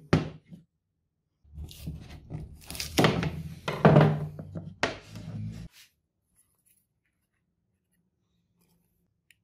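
Wooden blocks set down and shifted on a hard work board: two sharp thunks at the start, then about four seconds of knocking and scraping.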